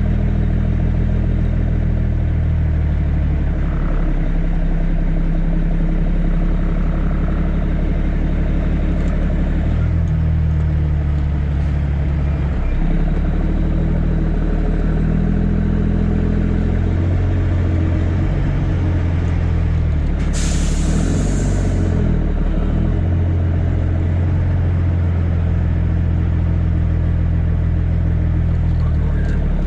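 CAT C13 inline-six diesel of a Kenworth W900B dump truck running under way, its pitch stepping up and down several times as it works through the gears. About two-thirds of the way through there is a short hiss of air lasting a second or two.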